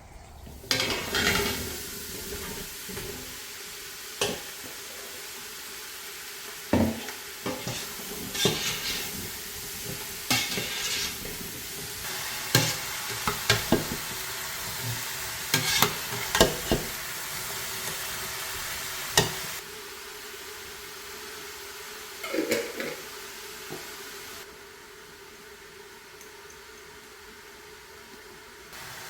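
Vegetables frying in a pan with a steady sizzle, stirred with a utensil that knocks and scrapes against the pan many times. The sizzle quietens about two-thirds of the way through and drops lower again near the end.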